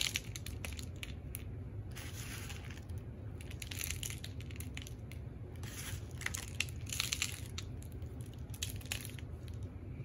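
Bird seed rustling and crunching as fingers scoop it from a plastic tub and press it onto a peanut-butter-coated cardboard tube, in irregular bursts of crackling over a steady low hum.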